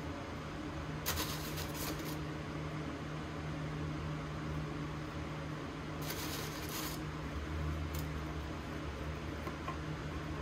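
A steady low appliance hum, with two brief bursts of crinkly rustling, about a second in and again around six seconds, as vanilla wafers are picked out of their paper wrapping.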